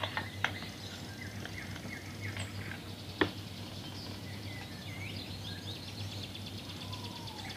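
Forest ambience of scattered short bird chirps over a steady low hum. A single sharp click comes a little after three seconds in.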